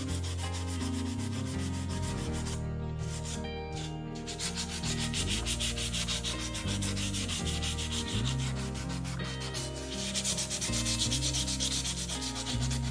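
Fine 600-grit sandpaper rubbed in quick back-and-forth strokes over the painted body of a scale RC Jeep Cherokee, wearing the paint through for a faded patina. There is a brief pause about two and a half seconds in, then the strokes resume.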